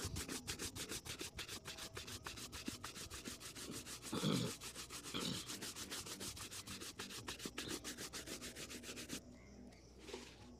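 Quick back-and-forth strokes of a bristle shoe brush buffing a leather shoe, about five strokes a second, stopping about nine seconds in. One louder bump about four seconds in.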